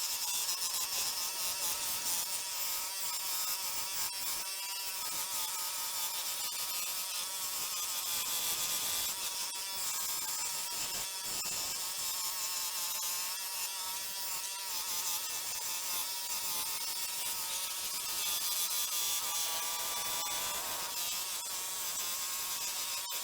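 Harbor Freight 16-inch scroll saw running steadily with a #5 pinless blade cutting out a name sign: an even, continuous buzz with a constant whine.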